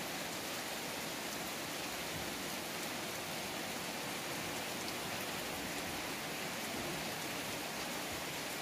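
Steady rain falling on a garden of potted plants and wet paving, an even hiss.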